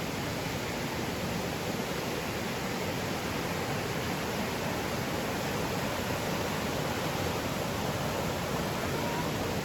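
Steady rush of running water from a forest stream.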